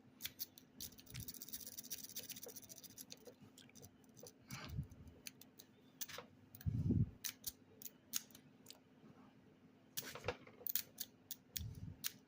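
Metal lock pick raking and stab-zipping in the keyway of a weathered, unoiled Master Lock No. 5 padlock that is seized up: scattered sharp clicks and scraping, with a few dull knocks, the loudest about seven seconds in.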